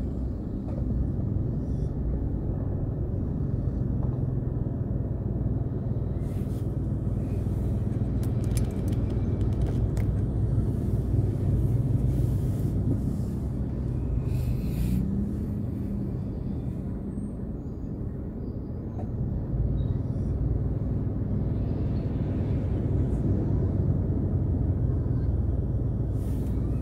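Steady low rumble of a car's engine and tyres, heard from inside the cabin while driving in traffic, with a few faint clicks in the middle.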